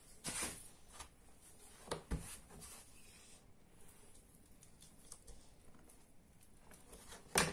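Hands working a sheet of puff pastry on a floured wooden board: soft rubbing and a few light handling sounds as the dough is folded and pressed, with one sharper knock near the end.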